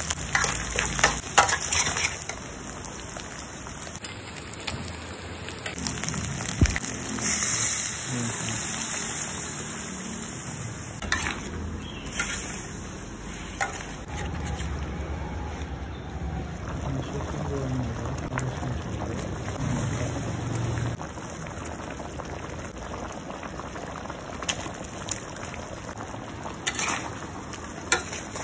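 Spice paste frying in a steel wok with metal spatula scrapes and clatter; about seven seconds in, liquid is poured in with a rush, and the creamy broth then bubbles as it is stirred with the spatula.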